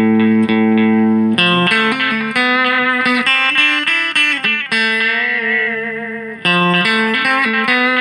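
Electric guitar played through a Watkins Copicat Mk1 tape echo on a longer delay setting, with the echo level turned down: a held chord, a new chord about a second and a half in, a run of picked notes and a long wavering note that fades, then a fresh chord near the end.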